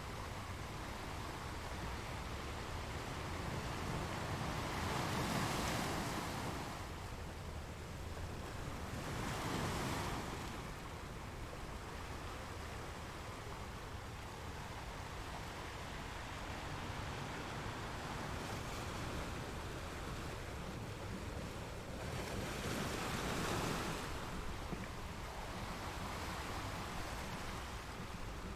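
Sea waves breaking on the shore, a steady wash of surf with several louder swells rising and falling a few seconds apart.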